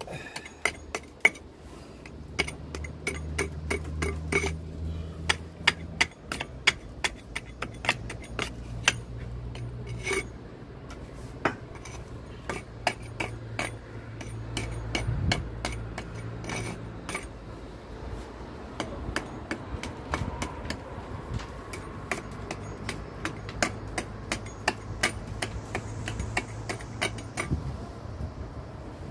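Small pointed hammer picking and tapping at soft, failing mortar in brick joints, raking it out so the wall can be repointed. The sharp, irregular taps come several a second at times, over a low steady hum.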